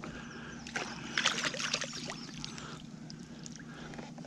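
Water splashing and dripping as a hooked crappie is scooped into a landing net and lifted out of the water, the splashes bunched in the first two seconds, over a steady low hum.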